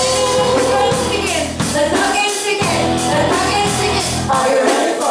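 Rock band playing live, a singer's voice over a steady beat with regular drum hits about three or four times a second.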